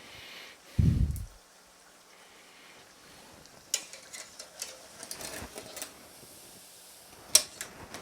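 Pizza dough pan-frying in hot oil with a faint sizzle, broken by a low thump about a second in and a few light clicks of a utensil against the frying pan.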